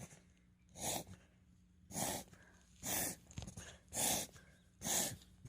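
Miniature dachshund reverse sneezing: a run of five snorting breaths, about one a second.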